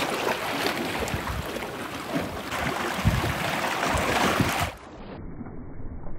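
Sea washing against shore rocks, with wind buffeting the microphone in gusts. About three-quarters of the way through, the sound cuts abruptly to a quieter, duller hiss.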